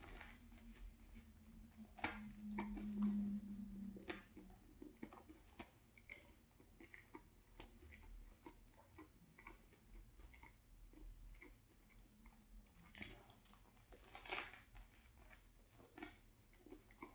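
Close-up chewing of a chicken, cheese and vegetable sub sandwich: soft, irregular wet mouth clicks. A low steady hum runs for the first four seconds, and a couple of louder crunches come near the end.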